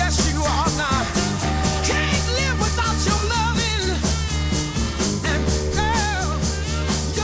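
Soul record playing: a full band with steady bass under a wavering, sliding lead melody.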